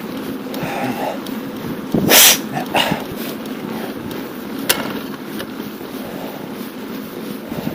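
Steady wind and riding noise from a moving bicycle, with a loud, short rush of noise about two seconds in and a sharp click near five seconds.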